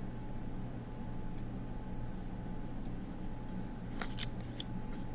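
Low steady hum of room tone. Near the end come a few faint, sharp papery clicks and rustles as cut-paper tangram pieces are handled and slid onto the worksheet.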